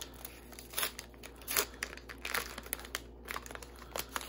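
Foil wrapper of a Pokémon TCG booster pack crinkling and tearing as it is pulled open by hand, in irregular crackly strokes.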